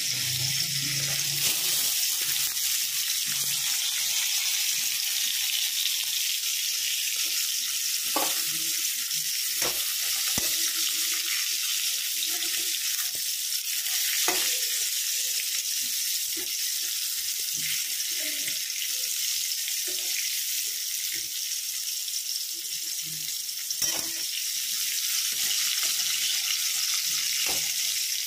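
Pieces of pointed gourd (potol) frying in hot oil in a metal kadai: a steady sizzling hiss, with occasional short knocks and scrapes of a spatula turning them in the pan.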